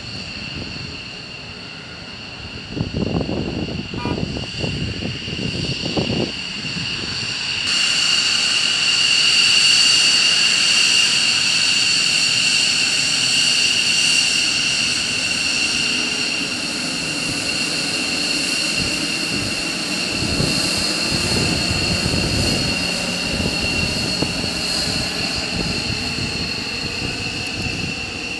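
Fighter jet engines running at taxi power: a steady high-pitched whine over low rumbling that swells and fades, with rumbling gusts about three to six seconds in and again around twenty seconds in. The whine grows louder about eight seconds in.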